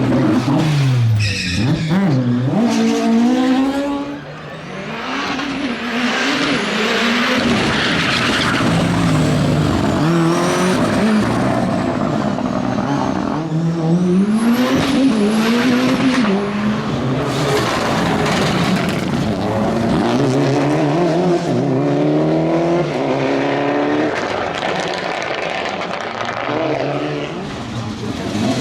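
Rally car engine revving up and down again and again, its pitch rising and falling with each burst of throttle, over tyres skidding on the surface.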